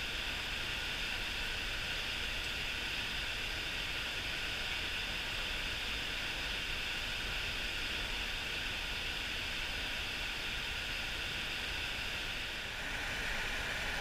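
Steady rushing of a mountain stream's current, a constant hiss of water. Near the end the level dips briefly and the sound grows a little fuller.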